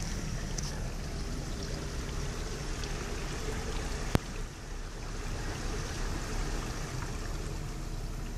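Vehicle engine running low as it drives slowly through floodwater, with water rushing and sloshing against the body, heard from inside the cab. A single sharp click about four seconds in.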